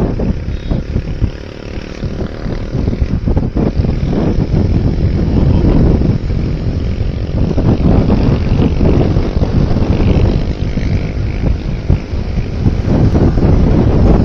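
Heavy wind buffeting on the microphone of a moving motorcycle, with the engine running underneath; the rushing gets louder about four seconds in.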